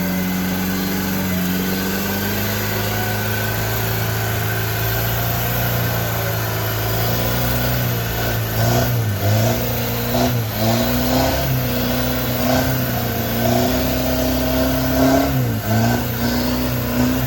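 Off-road Suzuki Vitara's engine running under load at steady revs. In the second half the pitch sags briefly a few times and picks up again.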